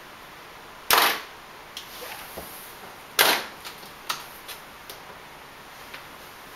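Metal latches of a trumpet case snapping open, two loud snaps a little over two seconds apart, followed by a few lighter clicks and knocks as the lid is opened.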